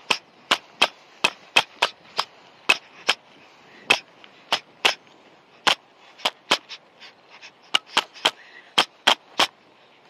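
Boxing-glove punches landing in sharp slaps, thrown in quick combinations of two and three, with short pauses between.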